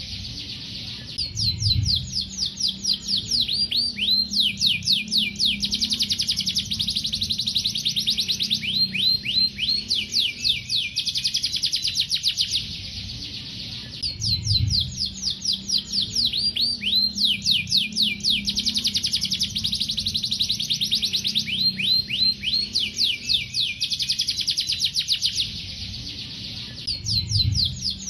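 Domestic canary singing long, fast trills of rapidly repeated high gliding notes, with only brief pauses near the start, about halfway through and near the end. A faint low hum runs underneath.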